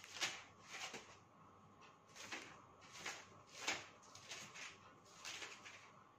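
Thin Bible pages being leafed through by hand: a series of about seven short, faint paper rustles, a few every second or two.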